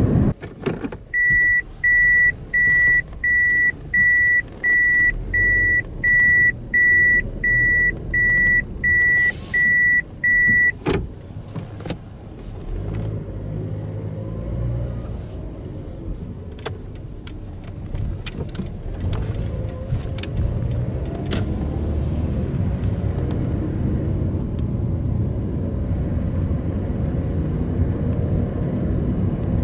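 A car's high electronic warning beep sounds about fourteen times, a little faster than once a second, and stops about ten seconds in. After that there is the steady low road and tyre rumble inside the cabin of a Toyota Vitz driving on new Yokohama BluEarth AE-01F summer tyres.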